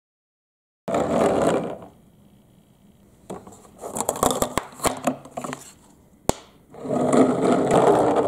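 Transparent plastic toy car on hard plastic wheels rolling across a tabletop, in two spells of about a second each. In between come clicks and knocks as the plastic car is handled, with one sharp click a little past the middle.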